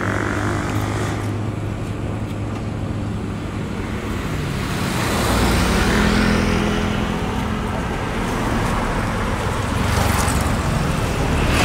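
Road traffic: motor vehicle engines running steadily, swelling louder as a vehicle passes about six seconds in.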